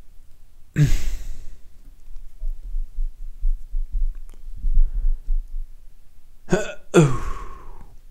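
Short breathy vocal sounds falling sharply in pitch: one about a second in and two in quick succession near the end, with faint low rumbling between them.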